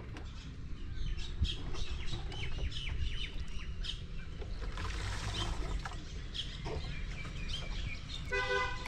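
Many birds chirping and calling over a steady low rumble, with a horn tooting briefly near the end.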